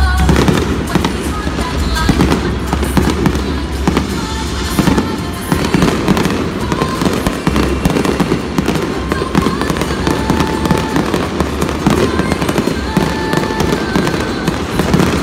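Fireworks display going off in a rapid, continuous run of bangs and crackling bursts.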